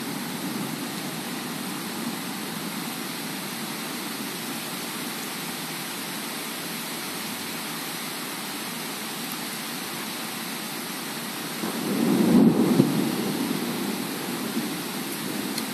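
Heavy rain falling steadily in a thunderstorm, with a louder rumbling swell about twelve seconds in that fades over the next couple of seconds.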